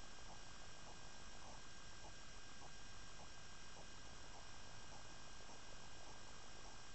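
Faint steady hiss and electronic hum with several thin high whining tones, the self-noise of the night-vision recording equipment, with faint irregular ticks a few times a second.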